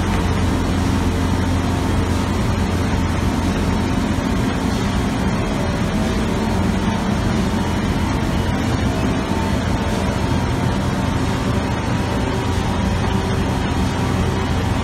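Steady industrial machinery drone with a strong low hum and several steady tones, from an in-floor roll conveyor carrying a large paper roll of corrugator liner stock amid running plant machinery.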